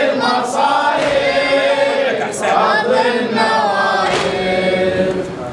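Voices chanting a Shia mourning latmiyya refrain together, in long held sung phrases.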